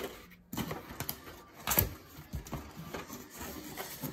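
Cardboard figure box being handled and opened by hand: scattered scrapes and taps of cardboard flaps and packaging, the loudest about two seconds in.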